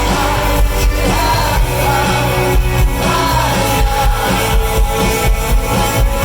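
Live rock band playing, with a lead vocal over a steady beat and heavy low end.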